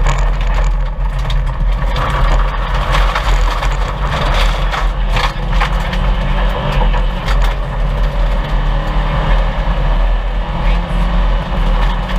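A 1998 Subaru Impreza 2.5 RS's flat-four engine running hard on a gravel rally stage. Loose stones crack and rattle against the car throughout.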